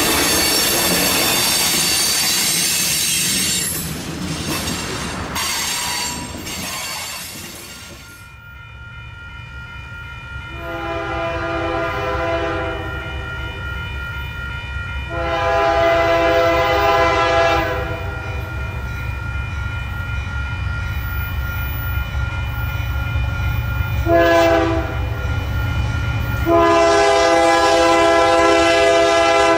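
A passing train's wheels rumble and squeal, dying away over the first several seconds. Then an approaching Union Pacific diesel locomotive's air horn sounds over a rising engine rumble: two long blasts, a short one and a final long one held to the end, the standard grade-crossing signal.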